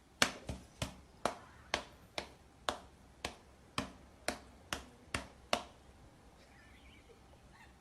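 A series of about thirteen sharp clicks or snaps, about two a second, stopping about five and a half seconds in.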